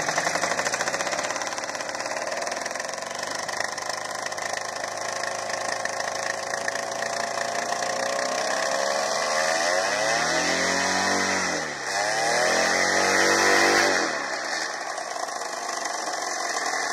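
Flying boat's engine running steadily. About ten seconds in, its pitch sinks and then climbs back up, and it is loudest just after, before settling to an even run again.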